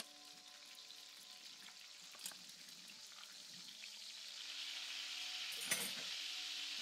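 Food sizzling and frying in a hot pan, growing louder from about four seconds in, with a small click a little over two seconds in and a sharp, louder click or clink near the end.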